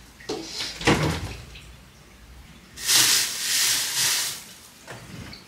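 A refrigerator door being pulled open, with a short thud about a second in. It is followed by a loud rustling hiss that lasts about a second and a half in the middle.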